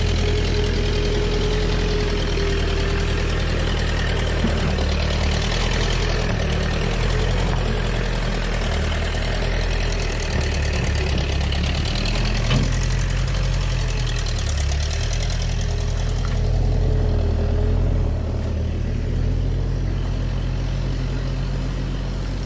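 Tractor engine running steadily, its low note rising and falling slightly as it works.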